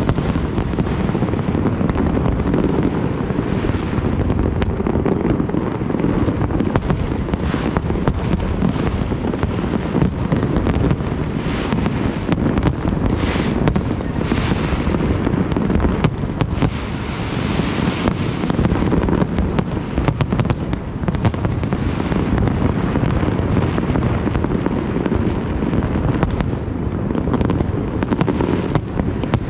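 Large aerial fireworks display going off in a dense, continuous barrage of shell bursts: a constant low rumble of bangs with many sharp cracks, and short stretches of hissing crackle.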